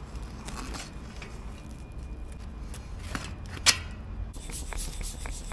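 Bicycle tyre being worked off its rim by hand: rubber scuffing and rustling, a sharp snap a little past halfway, then a few light ticks, over a steady low rumble.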